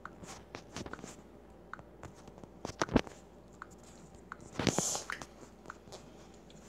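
Handling noise from a phone being held and moved: scattered light taps and clicks, a sharper knock about three seconds in and a short rustle near five seconds.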